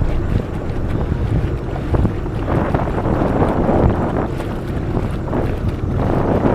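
Jet ski running over water, its engine noise mixed with water rush, and heavy wind buffeting the microphone.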